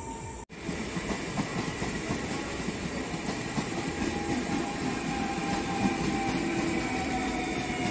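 Passenger train coaches passing at speed, with a steady rumble and the clatter of wheels over rail joints, and a faint steady whine above it. The sound cuts out for a moment about half a second in.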